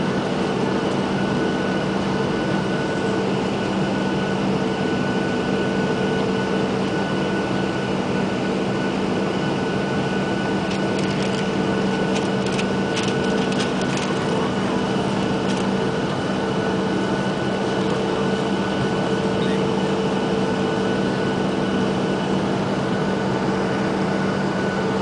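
Steady drone of a Boeing 737-800's CFM56-7B jet engines at low power, heard inside the passenger cabin, with a few faint clicks about halfway through.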